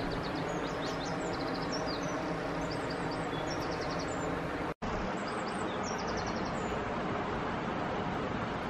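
Steady rushing of a flooded river in full spate, with small birds chirping high over it.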